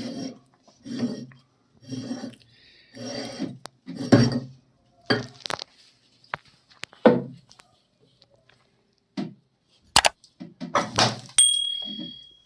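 Kitchen utensils and dishes handled: a run of short scrapes about once a second, then sharp clinks and knocks, with a brief high ring near the end.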